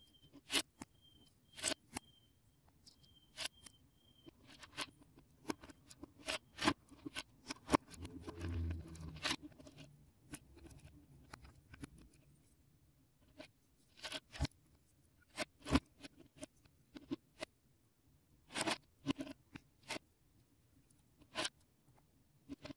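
Lego plastic bricks and plates clicking and snapping as they are pried apart and handled, a string of sharp irregular clicks with a muffled rustle of shuffled pieces about eight seconds in.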